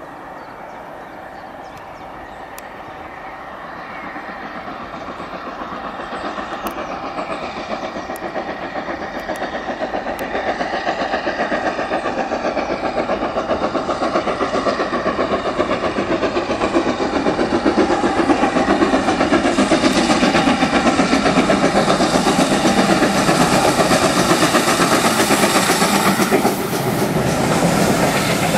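GWR Manor-class 4-6-0 steam locomotive 7828 Odney Manor working a passenger train, its rapid exhaust beats growing steadily louder as it approaches and passes close by. Near the end the coaches roll past, their wheels clicking over the rail joints.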